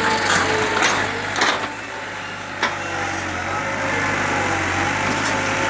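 Backhoe engine running steadily, with a few sharp knocks in the first three seconds or so.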